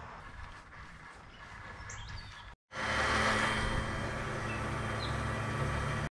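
Faint outdoor ambience with a couple of short bird chirps. About two and a half seconds in, after a brief dropout, a louder steady low mechanical hum with hiss takes over.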